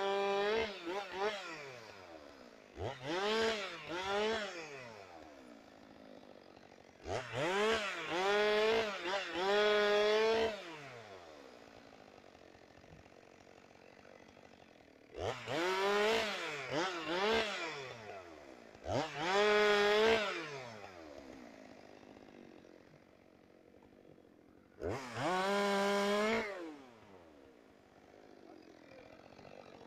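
Chainsaw revved to full throttle in about six bursts of one to three seconds, each pitch rising quickly, holding high and falling back to a low idle between bursts.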